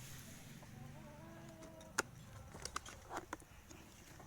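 Handling clicks from a plastic battery charger and its plug being fitted: one sharp click about halfway through, then a few lighter clicks. A faint drawn-out tone sounds in the background during the first half.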